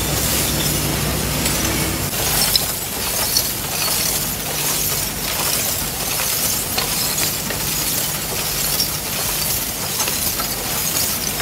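Waste glass bottles and broken glass clinking and crashing against each other as they ride a recycling sorting conveyor, a dense run of small glass impacts. A steady low machine hum from the conveyor runs under the first two seconds, then stops.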